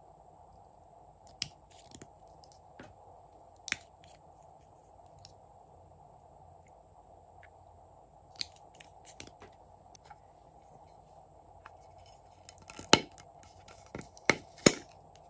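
Sharp plastic clicks and taps from small plastic cosmetic containers being twisted open and handled. They come scattered and faint at first, and the three loudest fall near the end.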